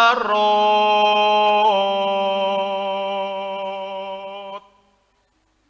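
A solo voice holding the long final note of a slow Javanese sung verse, wavering slightly once, then fading and stopping about four and a half seconds in.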